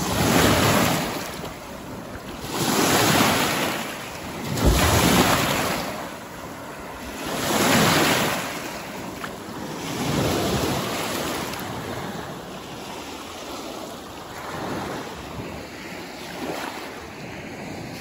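Lake Michigan waves breaking and washing up over the pebbly shore, surging and drawing back about every two to three seconds, the surges growing weaker near the end.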